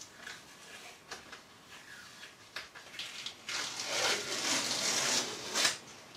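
Small scattered clicks and handling noises, then about two seconds of continuous rasping noise from hand work on the masking-tape edge of a primed repair, which ends sharply.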